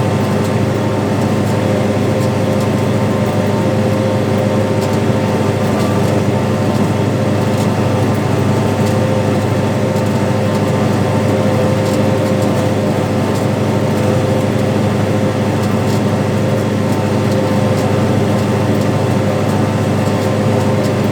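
Tractor diesel engine running steadily under load while pulling a planter through the field, a constant drone with no change in pitch.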